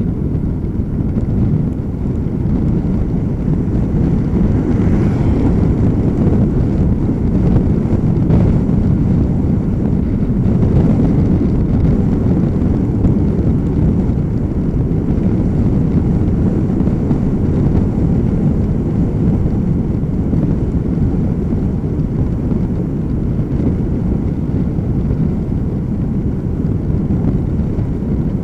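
Wind buffeting the microphone of a camera riding along on a moving bicycle: a loud, steady low rumble.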